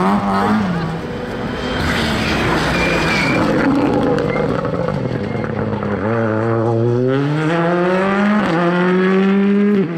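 Ford Fiesta rally car accelerating hard past at full throttle, its engine climbing in pitch through the gears, with an upshift about eight and a half seconds in.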